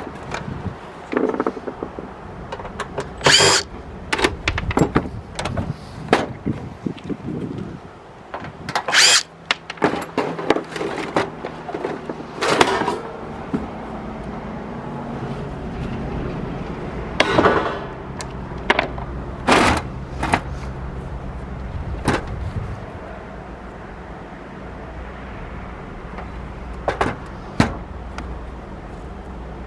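Taking apart a DVD recorder: many sharp clicks and knocks of plastic and metal parts and tools being handled. A small motor hums steadily for about ten seconds in the middle.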